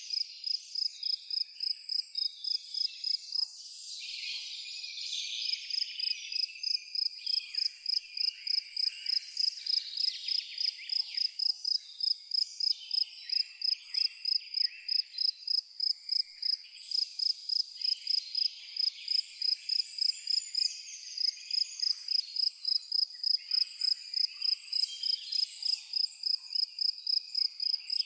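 An insect, likely a cricket, chirping in a steady even rhythm, about three high chirps a second, with birds calling over it. The chirping stops briefly about four seconds in.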